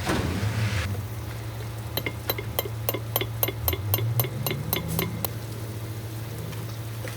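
An even run of light metallic clicks, about five a second for some three seconds, over a steady low hum.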